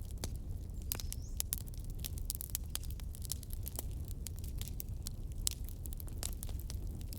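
Wood campfire crackling, with irregular sharp pops and snaps over a low steady rumble. A brief high rising whine comes about a second in.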